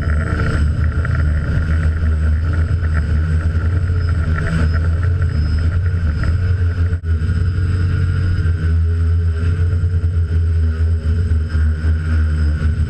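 DJI F450 quadcopter's brushless motors and propellers whirring steadily, heard from a GoPro carried on the craft, with heavy wind buffeting rumbling on the microphone. The sound dips briefly about seven seconds in.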